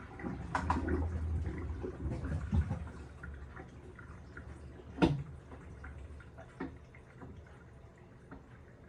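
Panasonic top-loading washing machine running its wash: water sloshing and dripping in the tub over a low motor hum, with a sharp knock about five seconds in.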